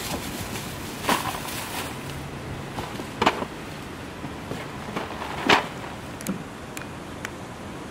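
Groceries being handled in a car trunk: a plastic grocery bag and a cardboard box lifted out, giving three short rustling knocks about a second, three seconds and five and a half seconds in, with a few faint clicks near the end.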